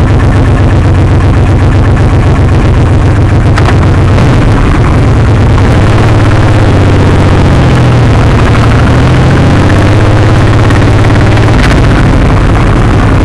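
Suzuki M109R (VZR1800) V-twin idling with a steady low beat, then pulling away and picking up speed near the end.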